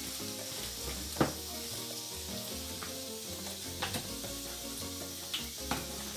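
Hands squishing and kneading raw chicken leg pieces in a wet spice marinade, a steady wet hiss with a sharp slap about a second in and a few smaller wet clicks later. Background music plays underneath.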